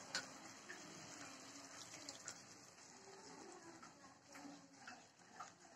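Very faint simmering of a soy-and-chilli sauce in a wok, with a few scattered light ticks; close to near silence.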